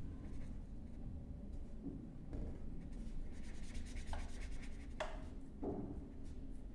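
Faint scratching and rubbing over a low room hum, with two brief faint squeaks about four and five seconds in.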